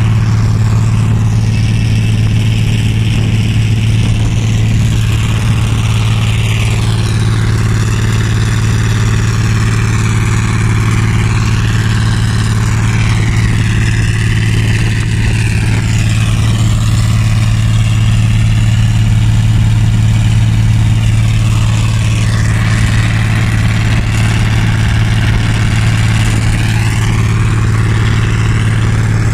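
Zmaj 161 combine harvester running steadily at working speed: a constant low hum from its engine and threshing gear, with a fainter higher whine that wavers in pitch over it.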